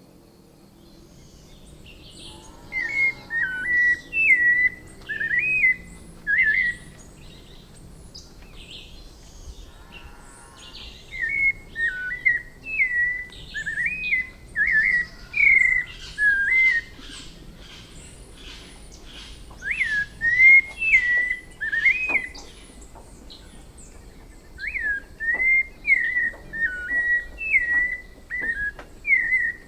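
White-necked thrush (sabiá-coleira) singing: clear whistled phrases of quick up-and-down notes, given in four bouts with pauses of a few seconds between them.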